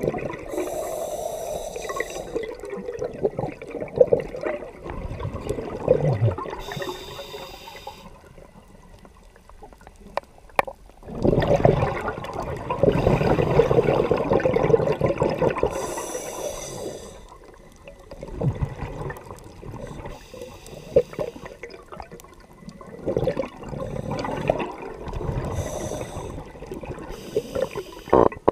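Scuba regulator breathing underwater: short hissing inhalations through the regulator every few seconds, and gurgling rushes of exhaust bubbles, the longest and loudest a little before the middle.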